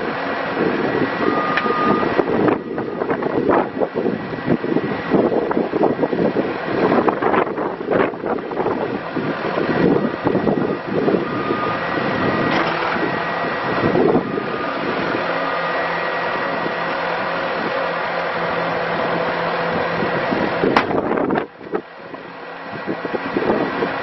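2012 Bobcat S630 skid steer's Kubota diesel engine running steadily while the loader arms raise and lower the bucket, with wind buffeting the microphone. The sound drops sharply near the end and builds back up.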